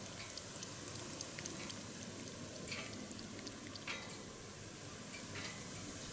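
A cat lapping water from a shallow pool: quick, faint, wet tongue clicks, with a few louder wet clicks, stopping near the end.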